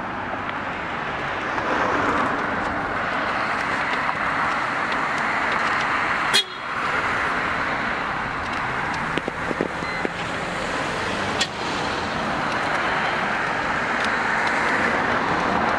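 Steady vehicle noise, with one sharp click about six seconds in and a few lighter clicks later.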